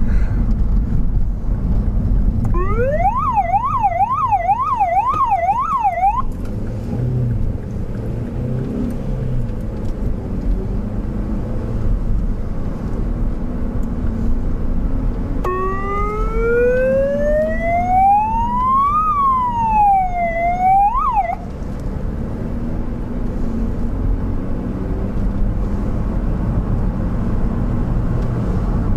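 Emergency vehicle's siren heard from inside the cabin: about two seconds in, a few seconds of fast yelp sweeping rapidly up and down, then midway a single slow wail that rises, falls and cuts off suddenly. Steady engine and road noise runs underneath.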